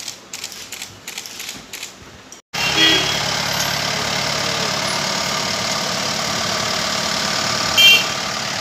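Faint clicks and clinks for about two and a half seconds, then a sudden switch to the steady noise of a running vehicle engine and street traffic, with a short horn toot near the end.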